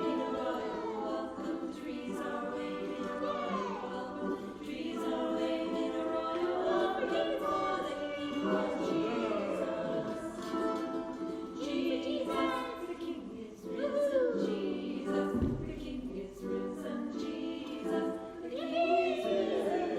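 Choral music: a choir singing, with voice lines gliding and bending over steady sustained tones.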